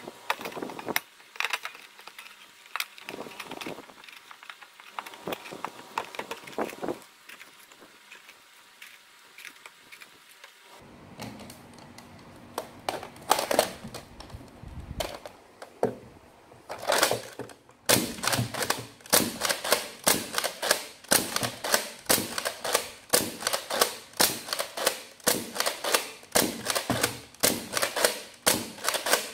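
Plastic clicking as foam darts are handled and loaded, then a spring-powered, slide-primed Nerf blaster being worked and fired over and over, a sharp plastic clack about twice a second through the second half.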